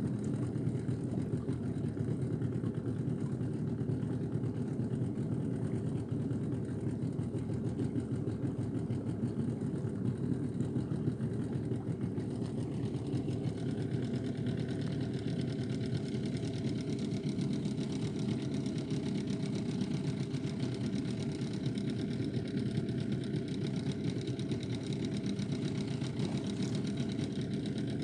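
Small boat's outboard motor running steadily at an even speed, pushing the boat along.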